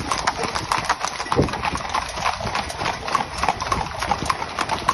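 Hooves of several cob horses clip-clopping on a tarmac road, many hoofbeats overlapping in a quick, irregular patter as the horses pull carts along.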